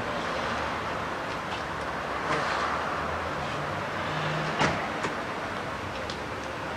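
Steady road-traffic and engine noise, with a few short knocks; the sharpest comes about halfway through.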